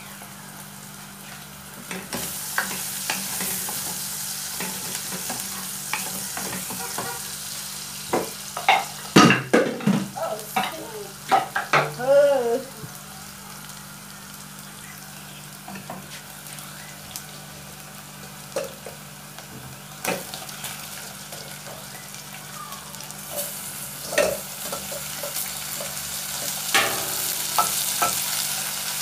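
Chopped onions and ginger sizzling as they fry in a pan, the sizzle building from about two seconds in. A wooden spatula stirs and knocks against the pan, with a busy run of knocks and scrapes from about eight to thirteen seconds in, under a low steady hum.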